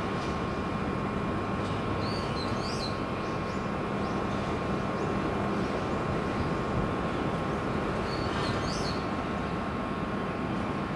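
Electric train standing at a station, its equipment humming steadily with a whine at several pitches. A high chirp sounds twice, about 2 and 8.5 seconds in.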